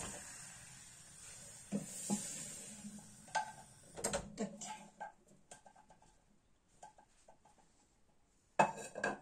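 Metal saucepan and kitchen utensils clanking and knocking as the pot is lifted off the gas stove and handled. A steady hiss dies away in the first second or so, there is a quiet stretch, and a burst of loud knocks comes near the end.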